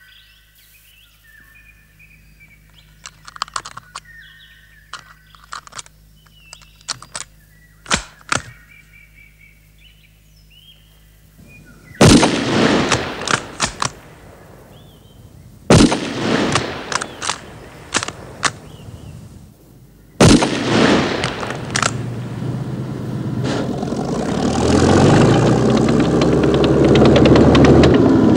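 Birds chirping and a few sharp clicks, then three loud rifle shots about four seconds apart, each followed by a short ringing echo. After the third shot a T-34 tank's diesel engine and running gear grow steadily louder as it approaches.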